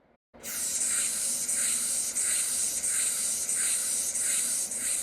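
Grasshopper stridulating: a steady, dry, hissing rasp that pulses about two to three times a second.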